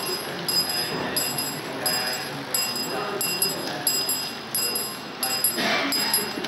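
Electric pulse bell of a model grade-crossing signal ringing, an even ding about one and a half times a second: the crossing has been tripped by an approaching locomotive's magnet passing a reed switch. Voices murmur underneath.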